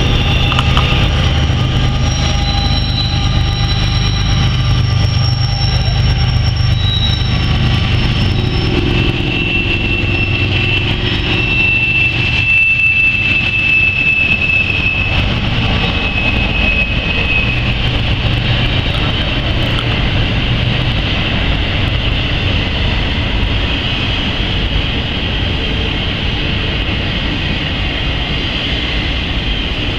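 BNSF freight train of empty intermodal well cars rolling past with steady wheel and rail noise and a low hum. Sustained high squealing tones come from the wheels on the curve and slowly drift in pitch.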